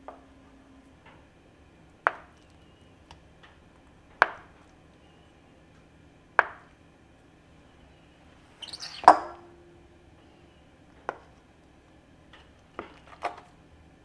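Kitchen knife slicing through a block of extra firm tofu, each stroke ending in a sharp tap of the blade on a bamboo cutting board, about every two seconds. A louder clatter comes about nine seconds in.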